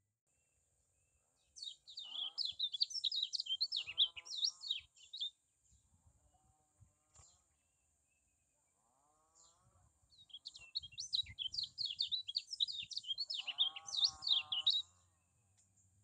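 Kecial kuning (a white-eye) singing: two bursts of rapid, high twittering song a few seconds each, with a pause between them.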